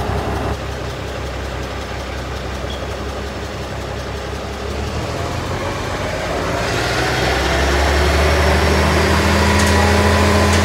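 Grapple truck engine running steadily at idle, then picking up about seven seconds in and running louder with a stronger, steady hum.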